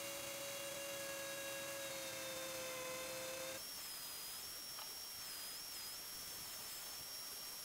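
Dremel 4300 rotary tool spinning a Kutzall Extreme Flame carbide burr through its flex shaft, carving into a wood branch with a steady high-speed whine whose pitch sags slightly as the burr bites. About three and a half seconds in, the sound changes abruptly to a thinner, higher whine that wavers.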